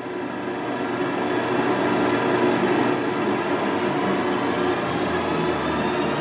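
Vintage film projector running: a steady, fast mechanical clatter and whir that swells up over the first second or two.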